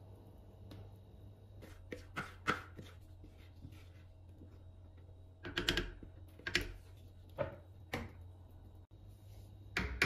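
Silicone spatula scraping and knocking against a plastic mixing bowl and the rim of a glass baking dish as the last of the cake batter is cleared out, in scattered sharp clicks, with a quick run of taps near the end.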